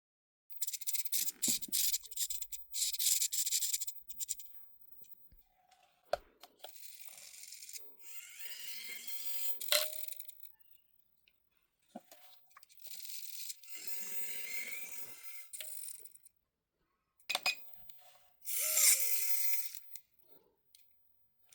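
Racent RDS64 1/64 micro RC drift car driven in short runs of a few seconds, its tyres scrubbing and sliding on a hard surface. Near the end, a whine falls in pitch.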